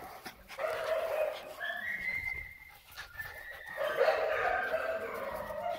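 Young dogs whining, drawn-out high whines in three stretches, the loudest near the end.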